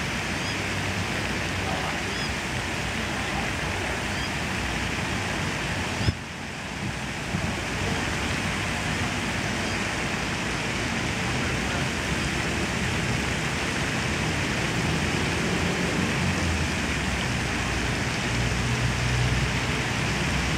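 Steady rushing outdoor noise, with a single knock about six seconds in and a brief drop in level after it.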